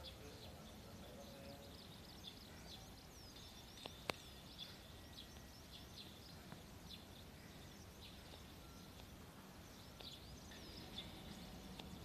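Many small birds chirping, short high calls repeating throughout. A single sharp click about four seconds in.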